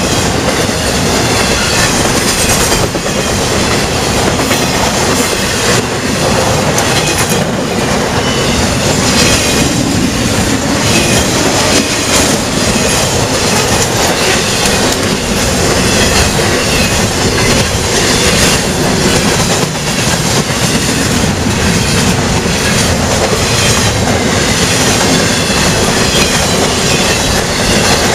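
Intermodal freight cars, flatcars carrying highway trailers and double-stack well cars, rolling past at close range: a loud, steady rumble of steel wheels on rail with irregular clacks as the trucks cross rail joints. Faint high wheel squeal comes and goes.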